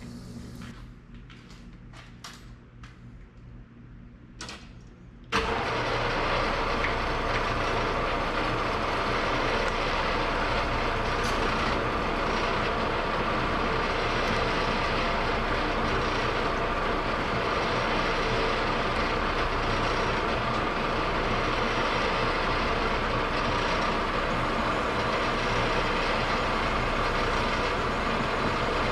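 Metal lathe starting up about five seconds in, after a few faint clicks, then running steadily while turning down a steel stud.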